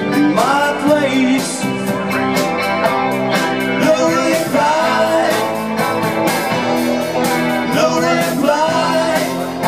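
Live rock band playing: electric guitars, bass guitar and drum kit, loud and steady, with a sung vocal line over it.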